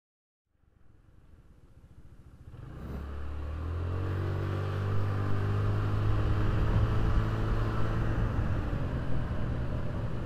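Motor scooter engine running while riding, with wind and road noise. It fades up out of silence over the first few seconds, its pitch climbs a little as the scooter gathers speed, holds steady, and eases slightly near the end.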